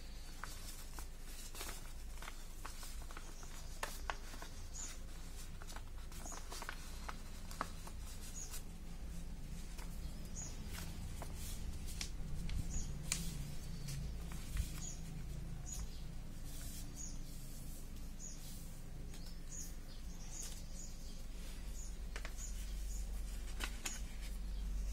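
A sheet of origami paper handled and folded by hand: rustling, crinkling and sharp crease clicks at irregular moments. Short high chirps repeat every second or so in the background over a low rumble that grows louder near the end.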